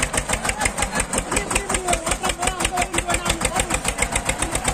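Eicher 242 tractor's diesel engine running with a fast, even chug of about eight beats a second while it moves slowly through shallow water.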